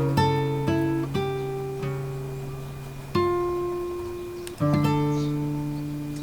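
Calm background music on a plucked string instrument: soft chords are struck and left to ring and fade, with new chords about three seconds in and again about a second and a half later.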